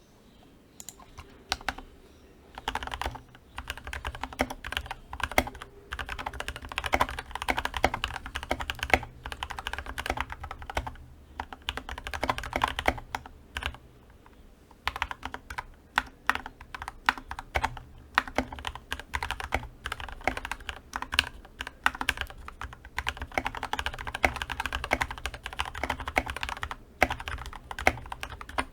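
Fast continuous typing on a GK61XS mechanical keyboard with lubed and filmed Gateron Milky Yellow linear switches and PBT keycaps: a rapid run of key clicks and bottom-outs, starting after a few scattered presses and pausing briefly about halfway through.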